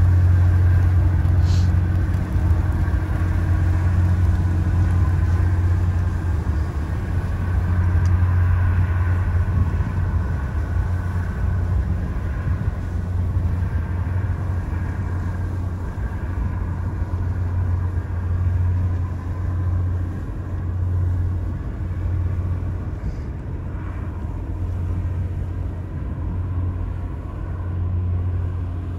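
Steady low rumble of the Great Lakes freighter John G. Munson's engine and machinery as the ship passes close by, fading a little toward the end.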